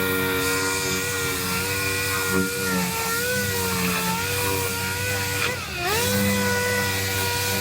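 Power tool motor whining steadily at a high speed, its pitch sagging about three seconds in and dropping sharply then recovering near the end, as it is pressed against sheet metal during quarter panel repair.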